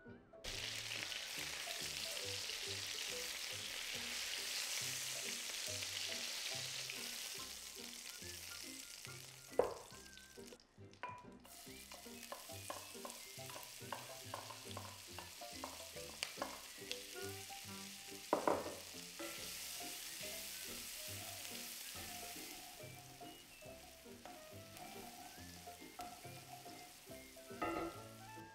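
Chopped onion frying in oil and butter in a cast-iron skillet, sizzling steadily and loudest in the first third. A wooden spatula stirs it and knocks against the pan, with a run of taps in the middle and a sharp knock about two-thirds of the way in. Soft background music plays underneath.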